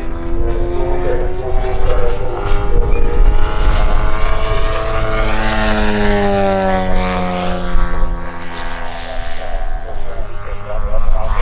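Propeller engines of large RC model warbirds flying past, the engine note rising and then dropping in pitch as one passes close, about halfway through, with a second engine tone overlapping.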